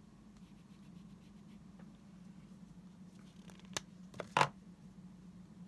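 A marker being handled and used for writing: a faint scratch, then three light knocks a little under four and a half seconds in, the last the loudest, over a low steady hum.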